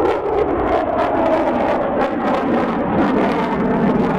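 F-22 Raptor fighter jet's twin turbofan engines, loud and crackling as it banks and pulls up into a steep climb overhead. The pitch drifts slowly lower.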